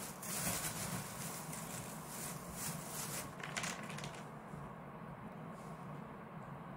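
Thin clear plastic bag of jigsaw puzzle pieces crinkling and rustling as it is handled, in several bursts that stop about four seconds in.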